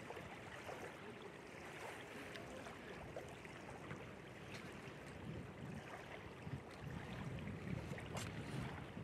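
Wind blowing over choppy lake water, with faint lapping of small waves. A low wind rumble on the microphone grows stronger in the last few seconds.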